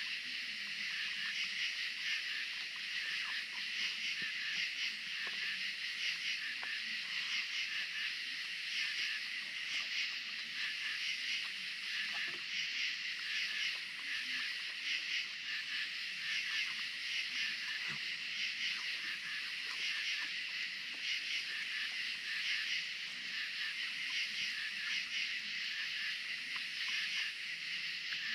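Steady chorus of night insects, a dense high pulsing trill that never lets up, with a few faint clicks from raccoons feeding at a wooden table.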